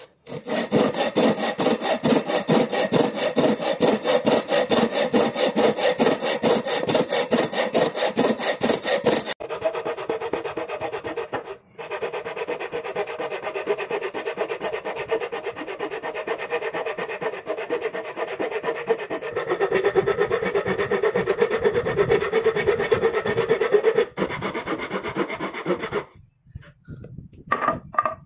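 Hand saw cutting along a wooden beam with quick, even back-and-forth strokes. A rasping scrape repeats with each stroke. The sawing sound changes abruptly about nine seconds in, turning lower and less bright, and stops briefly twice near the end.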